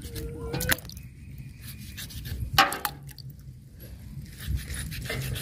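Knife slicing raw wallago catfish into steaks over a pot of water, with small wet clicks and drips as pieces go into the water, and one sharp knock about two and a half seconds in.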